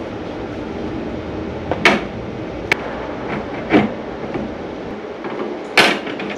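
Handling noise of electrical wires and a flexible plastic conduit fitting being worked into an inverter's metal wiring compartment: steady rubbing and rustling, with four sharp knocks, the loudest about two seconds in and near the end.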